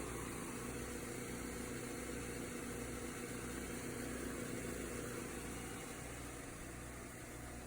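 Engine-driven 30-gallon service-truck air compressor running steadily, its engine and pump giving an even hum with a low pulsing beat; it runs a little quieter near the end.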